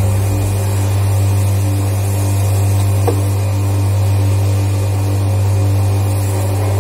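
Steady, loud low hum of plastics-factory machinery running without change, with a faint click about three seconds in.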